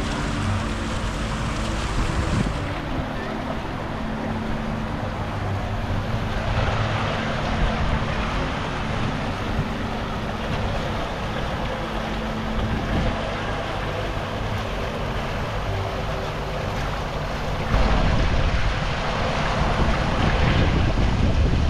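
Fountain jets splashing into a stone pool: a steady rushing hiss of falling water. Wind buffets the microphone, more strongly for the last few seconds.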